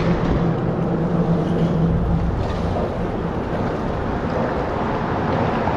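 Steady wind and water noise on the microphone, with a low engine hum that fades away about two seconds in.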